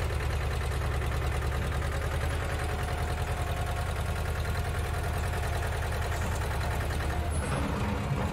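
An engine idling: a steady low rumble made of fast, even pulses.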